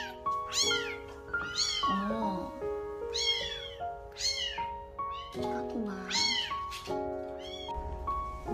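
Young kittens mewing repeatedly with thin, high-pitched cries that rise and fall, over a gentle melodic music track.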